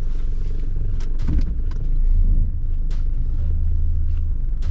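Steady low rumble of a van driving, with a few sharp clicks and knocks over it.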